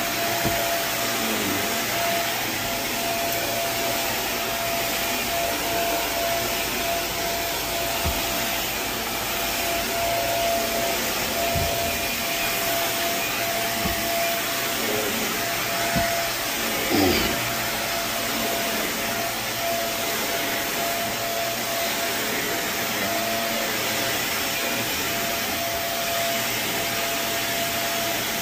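Carpet steam-cleaning (hot-water extraction) machine running steadily: an even vacuum noise with one constant tone through it. A few short knocks sound over it, the loudest about 17 seconds in.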